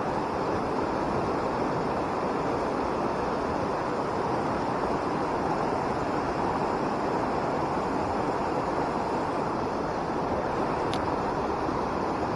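Fast-flowing mountain stream rushing steadily, with one faint click near the end.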